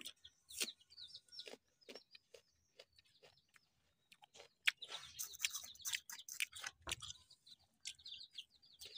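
Close-up chewing of crisp unripe mango slices: a string of short crunches and mouth clicks, thickest in the middle of the stretch. Small birds chirp in short repeated notes in the background.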